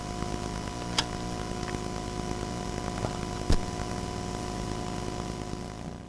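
Steady electronic hum and hiss carrying several fixed tones, from the camcorder-and-TV setup, broken by sharp clicks about a second in and again about three and a half seconds in. It cuts off suddenly at the end.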